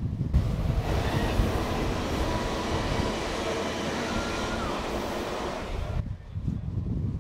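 Passenger train running through a tunnel: an even roar of wheels on rail, echoing off the tunnel walls, starts suddenly just after the start and cuts off about six seconds in. Wind buffets the microphone before and after.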